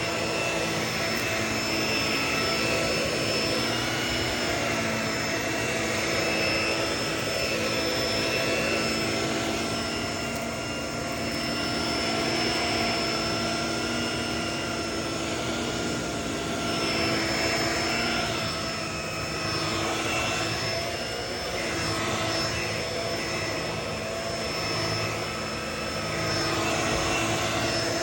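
Vacuum cleaner running steadily: a continuous rush of air under a high, steady motor whine, with lower tones that waver slightly in pitch.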